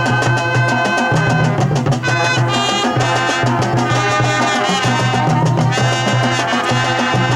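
High school marching band playing: brass horns holding sustained chords over a steady drum beat.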